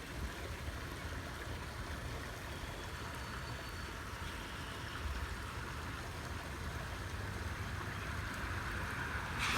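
Steady outdoor background noise: a low rumble with an even hiss over it. The hiss brightens near the end.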